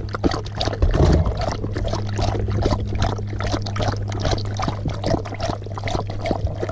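Siberian husky lapping water from a collapsible silicone bowl in a quick, even run of laps, with a steady low hum underneath.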